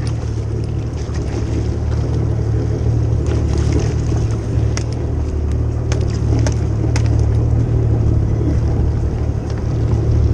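Jet ski engine running steadily, a low even drone, with a few sharp clicks about halfway through.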